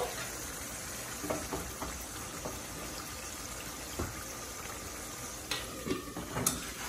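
Egg curry simmering in a metal karahi, a steady bubbling with a few light clinks. Near the end a metal lid is set onto the pan with a couple of sharp clanks.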